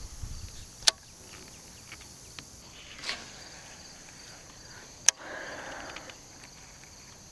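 Steady high-pitched insect chorus, with three sharp clicks spread through it and a brief rustle about five seconds in.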